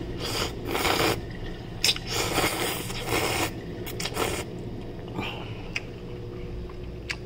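A person eating instant ramen noodles: several short, noisy slurps and mouth sounds over the first four seconds or so, with a sharp click near two seconds. Quieter after that.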